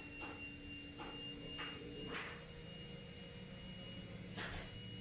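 A faint steady high-pitched whine, with a lower steady tone that stops about two seconds in, and a few short soft hissing noises, the loudest near the end.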